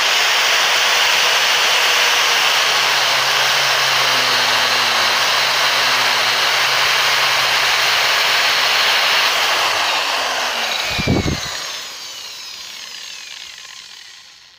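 Angle grinder spinning a CD in place of a cutting disc, running at full speed as it is pressed into a fruit. About eleven seconds in there is a brief thump, then the motor is switched off and winds down with a falling whine until it stops near the end.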